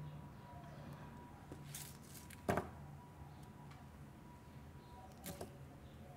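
Quiet handling noises from planting succulent cuttings: a few light clicks and one sharper knock about two and a half seconds in, over a faint steady hum.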